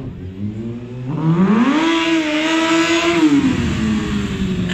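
Sport stunt motorcycle's engine revving: the pitch climbs about a second in, holds high for a second or so, then drops back as the throttle comes off.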